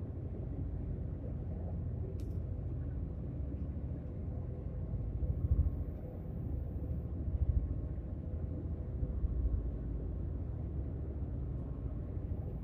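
Low steady rumble of a ship under way, with wind buffeting the microphone in swells and a faint steady machinery hum.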